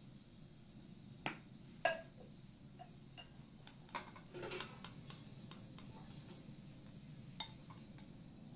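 Metal serving spoon clinking against ceramic bowls while dried apricots and raisins are spooned onto rice: a few scattered sharp clinks, the loudest about two seconds in.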